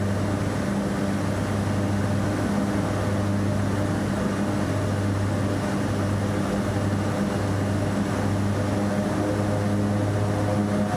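De Havilland Twin Otter's turboprop engines and propellers running steadily during the descent to land: a low, even drone with a slight pulsing in its hum, heard from inside the cabin.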